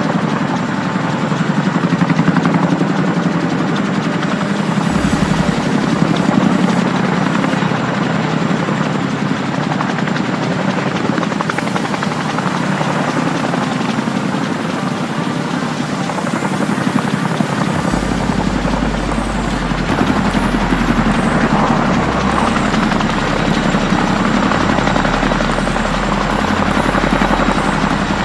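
Boeing CH-47 Chinook tandem-rotor helicopter hovering low, its twin rotors and turbine engines making a loud, steady, dense noise. About two-thirds of the way through, a deeper rumble joins in as the helicopter begins to climb with its sling load.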